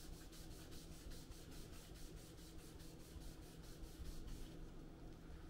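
Faint, quick repeated strokes of a paper towel wet with isopropyl alcohol rubbing old thermal paste off a CPU heatsink's base, stopping about four and a half seconds in.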